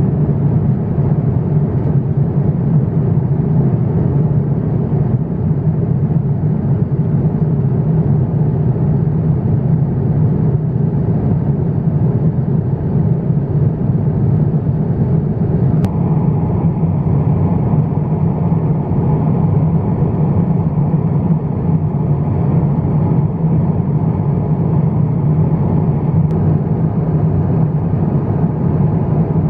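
Steady, unchanging rumble inside the cabin of an Airbus A350-900 airliner: engine and airflow noise heard from a passenger seat, with one faint click about halfway through.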